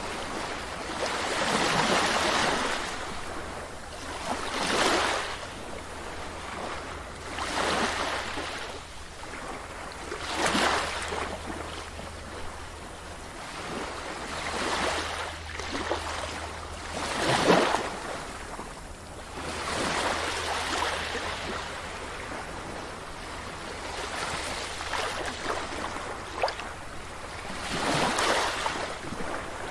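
Sea waves breaking on a beach, one surge of surf after another every few seconds, over a steady low rumble.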